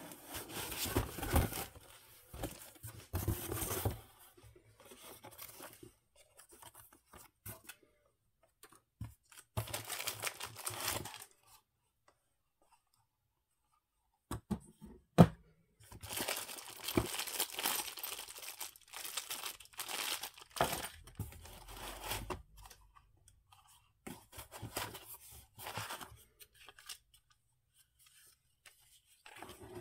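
Unboxing sounds: a taped cardboard box being torn open, then packaging crinkling and parts of a cordless mini chainsaw and its battery being handled in a cardboard box. A sharp click about fifteen seconds in.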